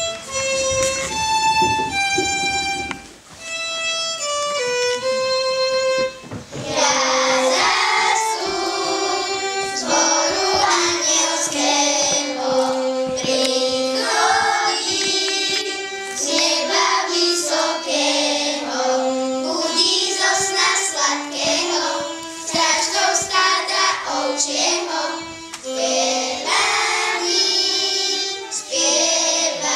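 A short melody played as single notes on one instrument, then, about six seconds in, a children's choir starts singing with instrumental accompaniment.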